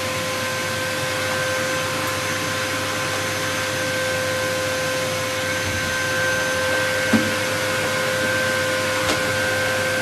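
Vacuum cleaner running steadily: a constant rush of air under an unchanging motor whine. A brief knock about seven seconds in, and a fainter one near nine seconds.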